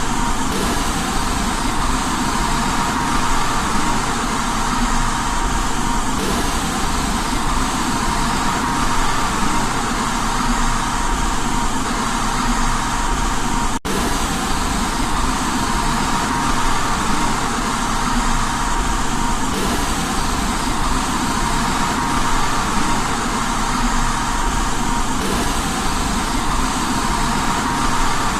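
Steady, loud white noise for baby sleep, an even hiss with a faint steady tone in it. It drops out for a split second about halfway through, then carries on unchanged.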